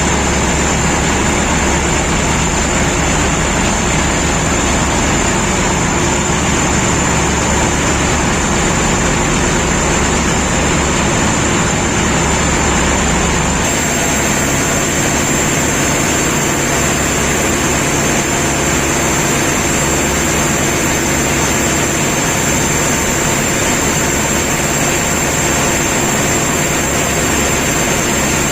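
Engine of a river passenger launch running steadily under way, a continuous low rumble with a thin high whine over it.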